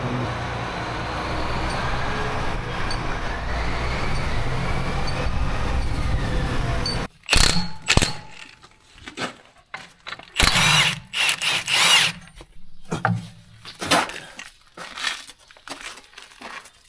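A machine engine runs steadily and cuts off abruptly about seven seconds in. After that come short, irregular clanks and squeals, like metal parts being worked.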